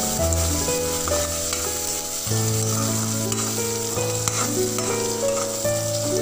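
Chopped onions, tomatoes, green chillies and curry leaves sizzling as they fry in oil in an aluminium kadai, stirred with a metal spoon. Instrumental background music with a melody and bass line plays over the sizzling.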